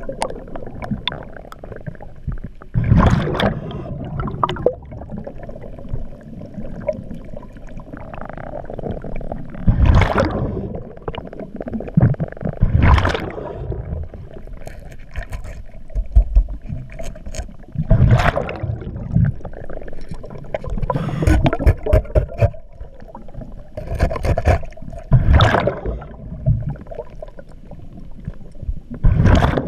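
A scuba diver breathing through a regulator underwater. Bursts of exhaled bubbles come every few seconds over a low rumble.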